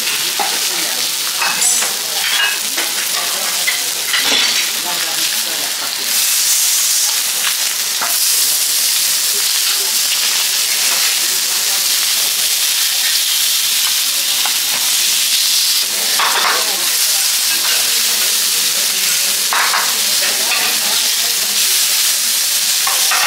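Sea bream fillets sizzling on a hot teppanyaki steel griddle, a steady frying hiss, with metal spatulas now and then clicking and scraping on the plate as the fish is turned.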